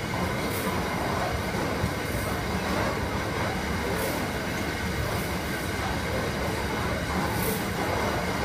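Container freight train's flat wagons running past at close range over a level crossing, a steady continuous sound of wheels on the rails.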